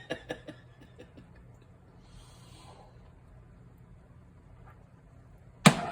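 Low steady hum with a brief faint breath-like hiss about two seconds in, then a single sharp knock near the end.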